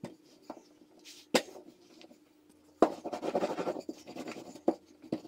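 Wooden rolling pin rolling over a floured stack of thin dough sheets on a silicone mat: soft rubbing and scraping, with a couple of sharp knocks in the first second and a half and a longer stretch of rolling about three seconds in.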